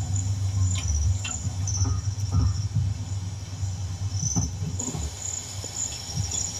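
Insects trilling in rapid, pulsing high notes throughout, over a steady low rumble, with a few soft clicks.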